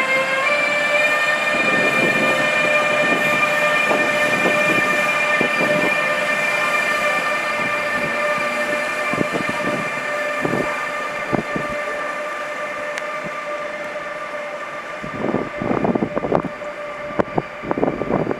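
ÖBB class 1116 Taurus electric locomotive pulling away with a train: its traction converters give a steady, high multi-tone whine. Irregular knocks come from the wheels on the track, loudest in a cluster near the end. The whole sound slowly fades as the train draws away.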